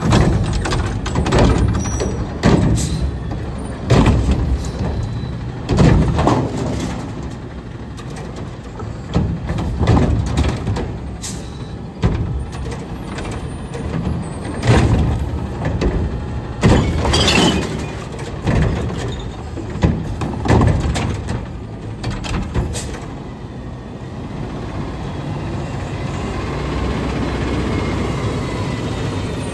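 Curotto Can front-loader garbage truck working a pickup: its engine runs under a series of loud clunks and bangs spread through the first twenty-odd seconds, with a short hiss about 17 seconds in. From about 24 seconds the knocking stops and only a steady engine sound remains.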